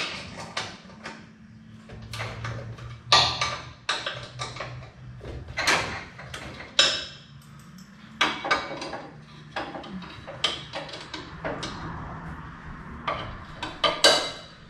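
Irregular metallic clanks and knocks as metal parts and tools are handled against a pickup's steel frame and rear suspension, over a steady low hum.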